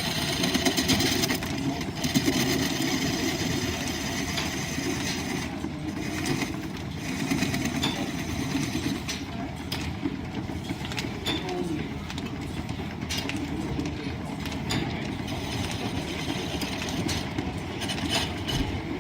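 Line-shaft-driven wood lathe and its overhead shafting and belts running with a steady mechanical rumble, with a turning tool scraping on the spinning wood at intervals, heard as a high hiss that comes and goes.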